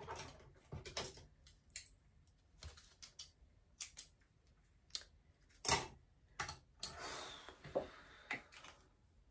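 Irregular light clicks and taps of small hair-styling tools and products being handled, with a short stretch of hiss a little past seven seconds in.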